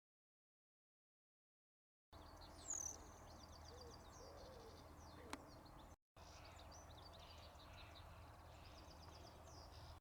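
Total silence for about two seconds, then faint outdoor background with small birds chirping and singing, and a single sharp click about five seconds in.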